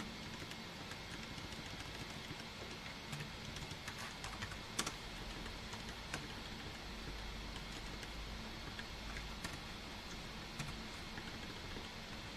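Typing on a computer keyboard: scattered keystrokes with short pauses, over a steady background hiss. One sharper key click about five seconds in.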